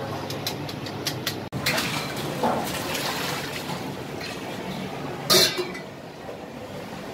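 Stainless steel pots and bowls clattering and clinking, with one loud, ringing metal clang about five seconds in, over steady kitchen background noise.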